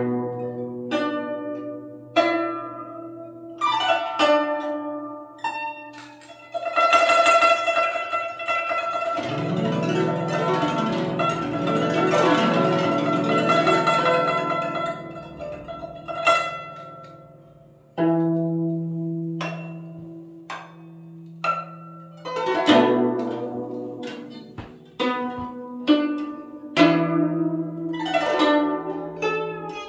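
Guzheng played solo: plucked notes that ring and die away, with a dense passage of rapid plucking from about seven to sixteen seconds in, then separate notes and long-held low notes again.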